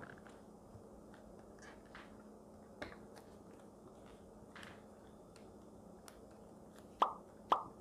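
Faint ticks and paper sounds as a hole-punched sheet is pushed onto the metal wire coil of a spiral planner, with two sharper clicks about half a second apart near the end.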